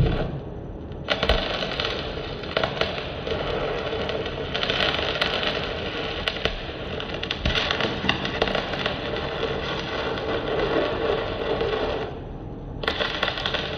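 Titanium Easy Flux 125 flux-core welder arc crackling and sizzling as a bead is laid, starting about a second in. The arc breaks off for about a second near the end, then strikes and crackles again.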